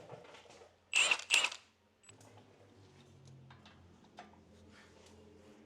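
Two sharp metallic clinks about a second in, hand tools such as a wrench and socket knocking together, followed by faint scattered ticks over a low steady hum.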